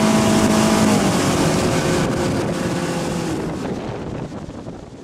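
Motor skiff running at speed over the water, with engine hum, wind and water rush. The engine's pitch drops a little about a second in, and the sound fades out toward the end.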